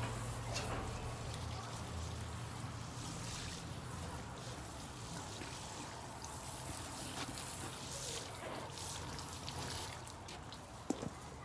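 Water spraying from a hose onto a car as it is rinsed, a steady wash of noise, with a couple of sharp taps near the end.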